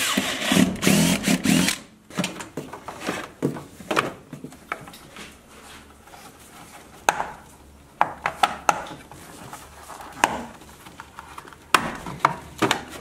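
Cordless drill running in a few short bursts as the bit goes through a plastic floor plug, stopping about two seconds in. After that, scattered clicks and knocks of hands handling parts under the truck's hood.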